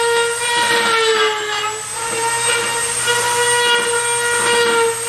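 Small handheld power tool running with a steady high whine, cutting the plastic of a front bumper lip. Its pitch sags briefly about a second in and again near the end, as the tool is loaded.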